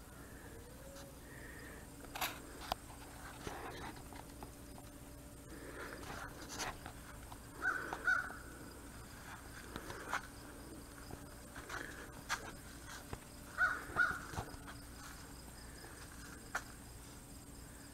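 Faint, short animal calls, some in quick pairs, with scattered sharp clicks over a quiet outdoor background.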